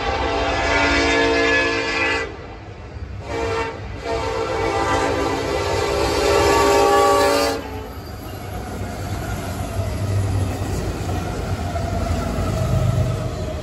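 Union Pacific freight locomotive's air horn sounding the grade-crossing signal: the tail of a long blast, a short blast about three and a half seconds in, then a final long blast that cuts off about seven and a half seconds in. The lead diesel locomotives then pass close by, engines running over the rumble and clack of wheels on rail.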